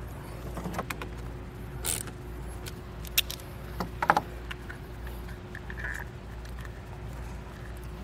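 A few light clicks and rattles of a wire and its crimped ring terminal being handled and tucked beside a car battery's positive terminal, over a steady low hum.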